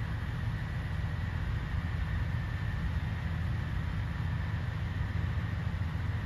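Steady low rumble of a Kiha 283 series diesel express train's engines, with a faint steady high tone above it.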